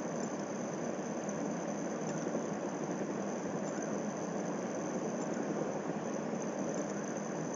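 Steady background hum and hiss, like a fan or air conditioner running, with a faint high whine and no distinct events.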